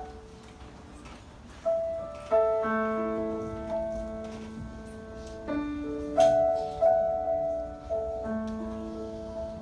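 Grand piano playing a slow introduction: quiet at first, then chords struck every second or two from about two seconds in, each left to ring and fade.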